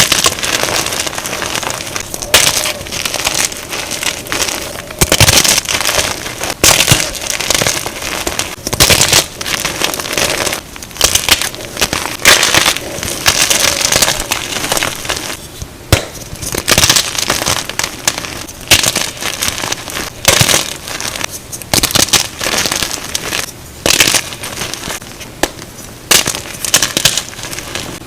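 Blocks of Plain Jane gym chalk being crushed and crumbled, a run of dry crunches and crackly crumbles, one after another with short gaps. The audio is sped up to double speed.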